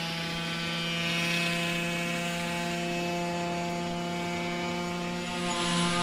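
Brush cutter engine running at a steady high speed, a continuous even drone that grows louder near the end as the cutter works through weeds.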